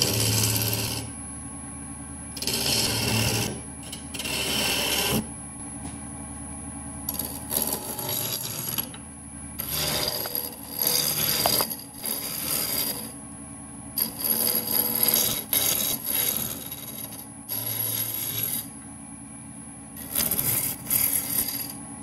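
Woodturning gouge cutting a spinning maple and epoxy resin blank on a wood lathe, in about eight separate passes, each a scraping hiss of one to three seconds, over the lathe's steady hum.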